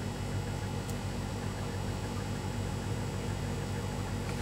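A steady low hum with a faint hiss underneath, the constant background noise of the room.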